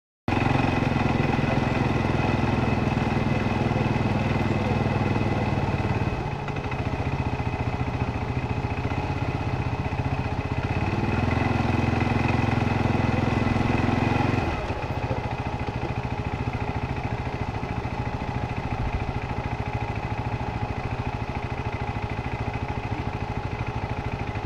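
ATV engine running as it climbs a rocky trail, the throttle rising and falling. It runs harder through the first half, eases off briefly, then settles to a lower, steadier note a little past halfway.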